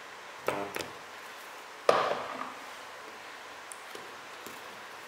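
Capacitor battery spot welder firing through a self-balancing welding pen: a brief clicking sound about half a second in, then one sharp, loud snap of the weld discharge on the nickel strip of an 18650 cell pack a little under two seconds in. The weld is hot enough to scorch the strip: the time or current is set a bit high.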